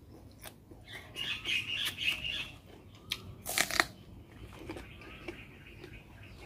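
Close-up chewing of a crunchy mouthful of bamboo-shoot salad wrapped in a fresh leaf, with wet mouth clicks and lip smacks; the crunchiest stretch is about one to two and a half seconds in.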